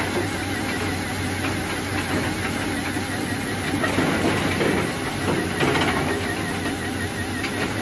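Small electric gear motor of a cardboard model tractor running steadily, a continuous whir with a wavering whine.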